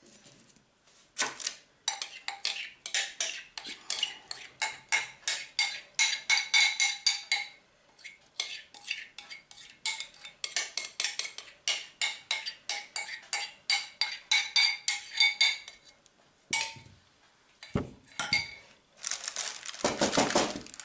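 A spoon scraping thick batter out of a glass jug, clinking against the glass in quick strokes, about three or four a second, with a short pause about halfway. Near the end come two duller knocks and then baking paper rustling in a metal loaf tin.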